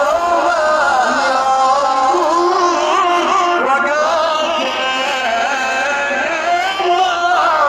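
Male voices chanting a wedding zaffa nasheed, a melismatic Middle Eastern melody with wavering, gliding vocal lines.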